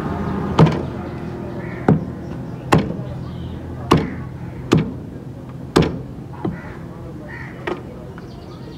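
Butcher's steel cleaver chopping chicken on a wooden block: about eight sharp chops, roughly one a second, a few of them lighter. A low steady hum underneath fades away over the first few seconds.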